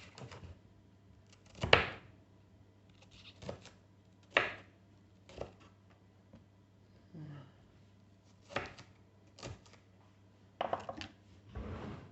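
Small knife cutting a bell pepper on a chopping board: separate sharp knocks of the blade on the board, spread unevenly with pauses between them.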